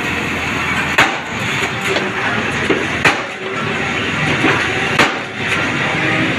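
Tractor-mounted drilling rig running steadily, with three sharp knocks about two seconds apart.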